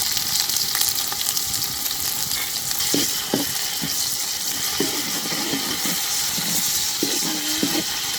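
Food sizzling in hot oil in a cooking pot over a fire, a steady high hiss, with occasional stirring.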